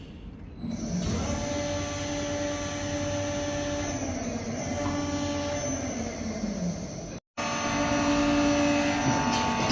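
Workshop machinery running in a sheet-metal fabrication shop: a steady mechanical hum with several whining tones. It starts about a second in and cuts out for a moment about seven seconds in.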